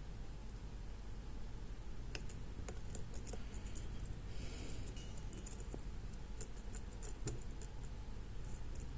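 Faint, irregular metallic clicks and ticks of a hook pick and tension wrench working the pin tumblers of a lock held in a vise, with a brief scraping hiss about four and a half seconds in.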